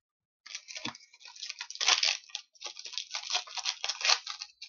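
Trading cards handled and slid one after another off a stack in the hands: a quick, uneven run of rustling swishes and light clicks starting about half a second in.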